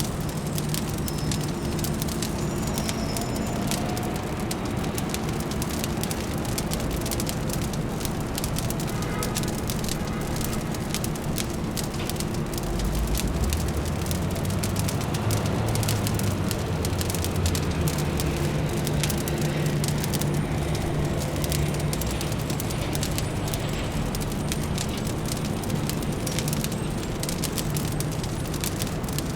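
Fire crackling with dense small pops over a steady low city hum. A deeper low rumble swells in the middle and fades.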